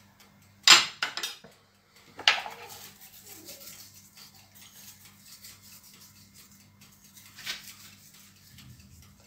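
A few sharp clinks and clatters of kitchenware, plates and a metal pizza pan: the loudest comes just under a second in, another a second and a half later, and a smaller one near the end. A faint low hum runs underneath.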